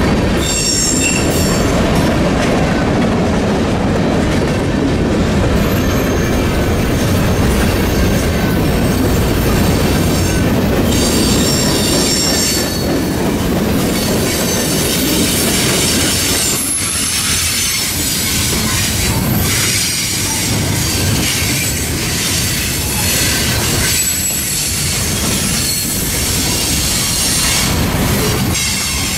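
Freight cars rolling steadily past on a curve: a loud, continuous rumble of steel wheels on rail with clickety-clack, and high-pitched wheel squeal that comes and goes several times as the wheels grind round the bend.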